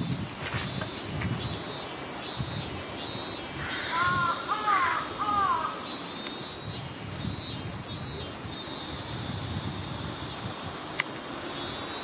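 Jungle crow cawing: a short run of about three arched caws about four seconds in, over a steady high insect buzz.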